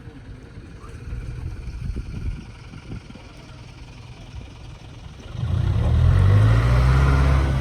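Land Rover engine pulling under load close by. It comes in loudly about five seconds in, after a low, fainter rumble.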